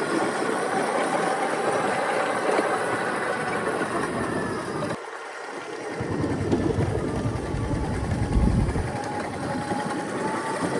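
Motorcycle engine running as the bike rolls down a steep mountain road on the brakes. A deeper rumble swells from about halfway through, after a brief dip.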